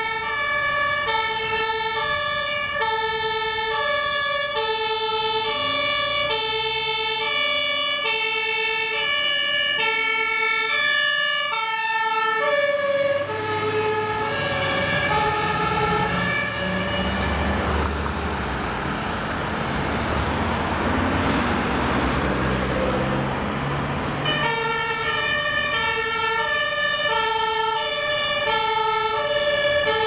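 German fire engine's two-tone siren (Martinshorn), alternating steadily between a lower and a higher pitch. About halfway through, the siren is partly drowned for several seconds by a heavy diesel engine and tyre noise as a fire engine passes close by. Then the two-tone siren sounds clearly again.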